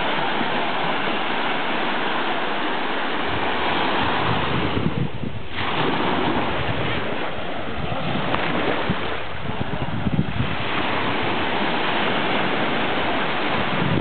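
Small waves breaking and washing up a sandy shore, a steady rushing hiss, with wind buffeting the microphone from about three seconds in.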